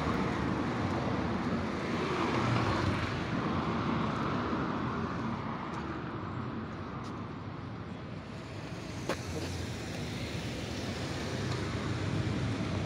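City street traffic: cars driving past on the road beside the sidewalk, a steady rush of engine and tyre noise, with one short sharp click about nine seconds in.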